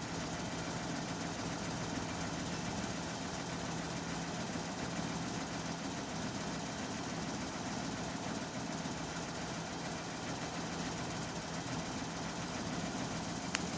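Bus engine idling steadily, with one sharp click near the end.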